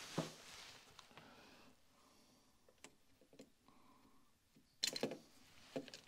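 Scattered light clicks and knocks of handling, loudest in a short cluster about five seconds in, as a voltage tester's probes are set against the terminals of an opened light switch.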